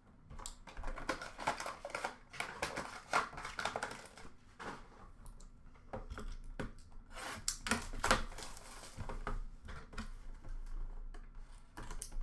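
Trading cards being handled and sorted by hand: many quick, irregular clicks, taps and short rustles of card edges and packaging.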